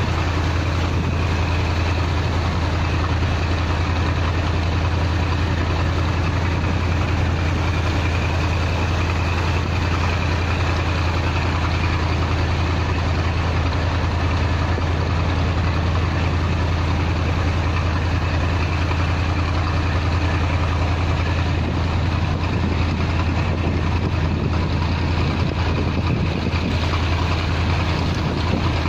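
A Mekong river cruise boat's engine running steadily underway, a constant low drone, with water rushing along the hull.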